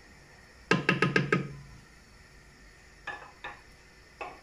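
Wooden spoon knocked against the rim of an aluminium cooking pot: a quick run of about five ringing knocks about a second in, then a few lighter single knocks.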